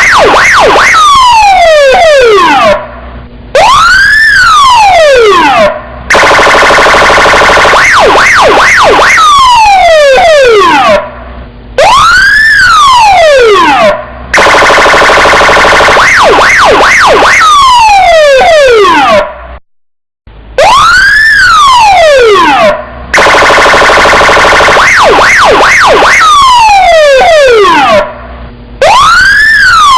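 Police car siren cycling through its tones, repeating about every eight seconds: a quick run of short chirps, several falling glides, a brief pause, then one long rise-and-fall wail.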